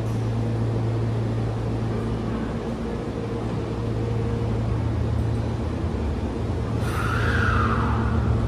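Hanshin 1000 series electric train standing at an underground platform, its equipment giving a steady electrical hum with a few even tones. About seven seconds in, a louder noise with a falling pitched sound comes in.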